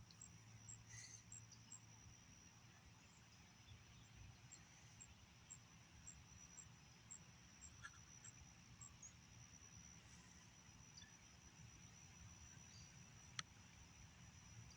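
Faint outdoor ambience of insects: a steady high-pitched drone with small repeated chirps over the first half, and a single sharp click near the end.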